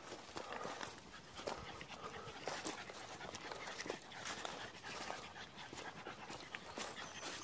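A dog panting from exertion on a long walk, with irregular footsteps and rustling through grass.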